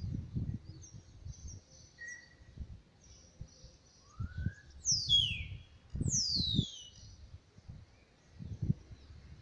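Wild birds calling outdoors: a short chirp, a brief rising note, then two loud, quick descending whistles about halfway through. Under them, soft low scrapes and thumps of soil as a star tortoise shifts its hind legs in the loose earth of its nesting spot.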